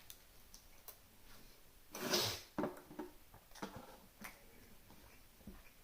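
Small handling sounds during a meal: a short rustle about two seconds in, then a few light clicks and taps.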